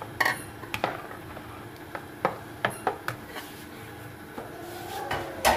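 A plastic spoon stirring yogurt in a bowl, knocking and scraping against the bowl in irregular sharp clicks, with a louder clatter near the end.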